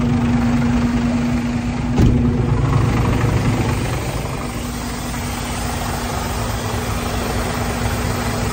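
Compressed air hissing steadily from a leak behind the lorry's passenger-side front step, over its idling diesel engine, with one sharp knock about two seconds in. The mechanic reckons the valve on the bottom of the air dryer has probably gone.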